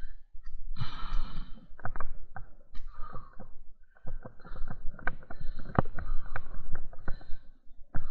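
Leaves and branches rustling, with many small twigs cracking, as someone pushes on foot through dense undergrowth, and a person's breathing mixed in.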